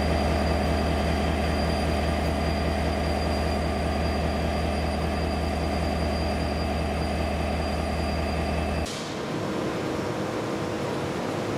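Renfe Class 334 locomotive's Caterpillar V12 diesel idling while standing, a steady deep rumble with a steady high whine above it. About nine seconds in it cuts to a Renfe Class 252 electric locomotive standing, giving a quieter, steady hum.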